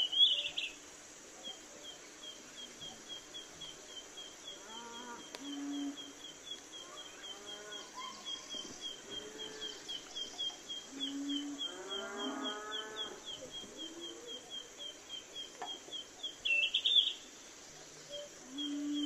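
A cow mooing several times, low drawn-out calls, over a bird's steady repeated chirping at about three chirps a second. Two short louder sounds come near the start and near the end.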